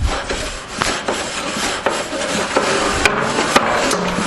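Wire brush scrubbing a barbecue grill: continuous rough scraping, with two sharp clicks a little past three seconds in.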